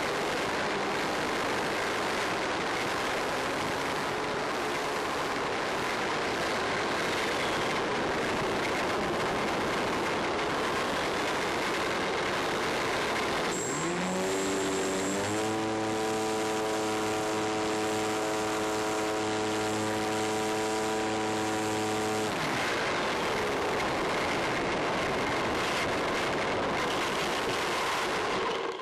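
Electric motor and propeller of a Skywalker FPV model plane in flight, with steady wind rush over the onboard camera. About halfway through the motor whine rises in pitch as the throttle opens, holds steady for about seven seconds, then drops away.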